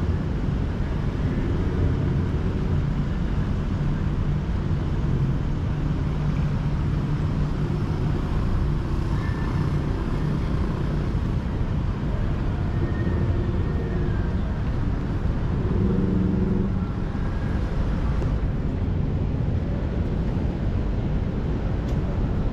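City street traffic: cars and other motor vehicles running and passing with a steady, continuous rumble, one engine standing out louder about 16 seconds in.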